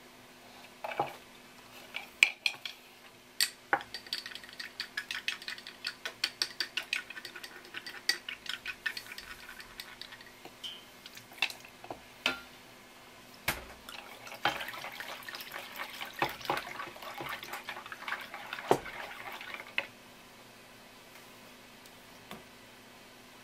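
Long cooking chopsticks beating raw eggs in a wooden bowl, a fast clicking and sloshing rhythm in two spells. Sharp taps between the spells are eggs being cracked. The beating stops near the end.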